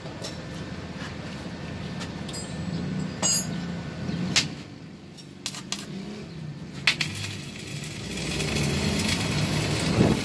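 Stick (arc) welding on a steel motorcycle swing arm with E6013 electrodes: a few scattered sharp clicks and short crackles as the rod strikes and starts the arc, then from about eight seconds in a steady crackling hiss as the weld runs.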